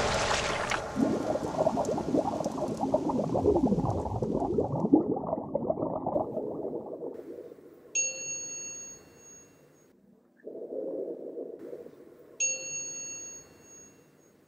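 Rain and low rumble fading away over the first six seconds, then two clear bell-like dings about four seconds apart, each ringing out and fading.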